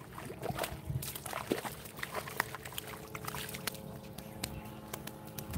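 A hooked pelengas (so-iuy mullet) splashing and thrashing in shallow water as it is dragged ashore, with irregular sharp slaps and clicks.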